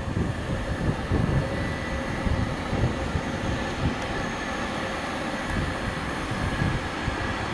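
Bombardier TRAXX class 186 electric locomotive hauling an intermodal container train past: a steady low rumble of the train on the rails, with a faint steady high whine over it.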